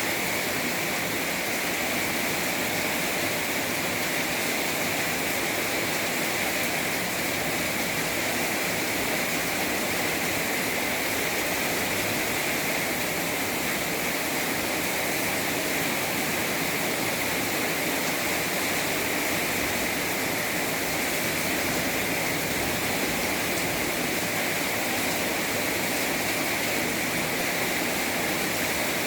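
Heavy rain pouring down in a storm, a steady, even hiss that does not let up.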